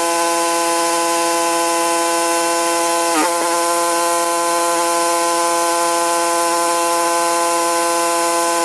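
Gas-engine pressure washer running steadily, a sustained engine and pump tone over the hiss of the spray. About three seconds in the pitch dips briefly and recovers.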